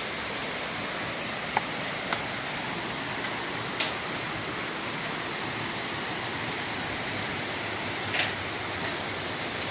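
Steady rush of falling water, with a few faint clicks along the way.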